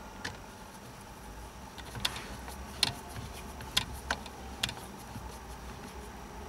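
Light clicks and ticks of a small screwdriver turning the bolts that fasten a steering clock spring, a handful of them spaced about a second apart.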